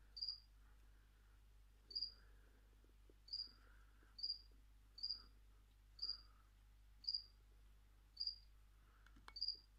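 Faint, very short high chirps from a cricket, about nine of them, roughly one a second and slightly uneven.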